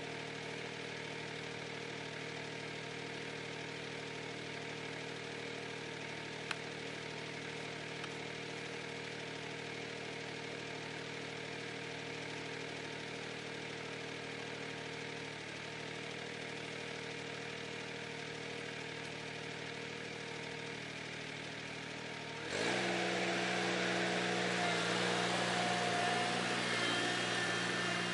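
Ventrac 4520Z compact tractor engine running steadily at idle, then revving up sharply and getting much louder about three-quarters of the way through as the machine drives in close.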